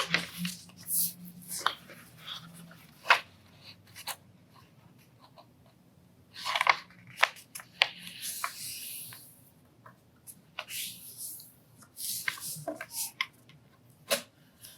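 A square sheet of paper being folded corner to corner and creased: crisp rustles and crackles as it is handled, with longer sliding scrapes about eight seconds in and again near eleven seconds as the fold is pressed flat.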